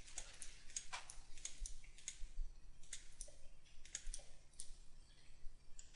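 Faint, irregular clicking from a computer keyboard and mouse in use, about two or three clicks a second.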